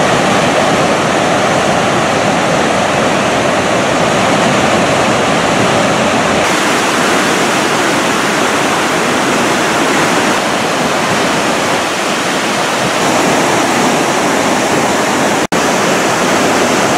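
Floodwater rushing through open dam spillway gates and down the channel below, from a reservoir overflowing after heavy rain: a loud, steady rush of water. The sound shifts slightly about six seconds in and drops out for an instant near the end where the footage is cut.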